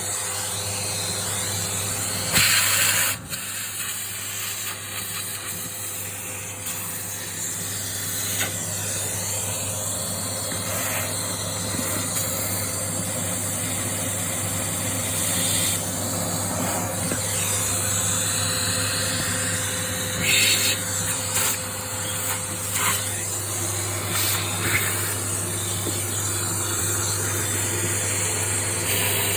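Steady motor hum under a continuous hissing spray, with a short louder burst of hiss a couple of seconds in and another about two-thirds of the way through.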